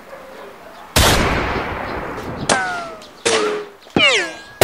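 A gunshot about a second in, its echo fading over about a second and a half. Then come three ricochet whines about three quarters of a second apart, each a quick whistle that falls in pitch.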